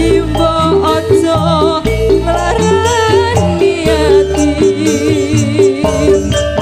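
Campursari band playing live, with gamelan metallophones, kendang drums and bass under a woman singing in Javanese style with vibrato.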